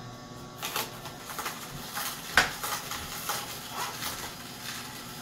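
Masticating juicer's auger crushing beet pieces pressed down the feed chute with the plunger: irregular crunching and cracking with one sharp crack about two and a half seconds in, over the low hum of the juicer's motor.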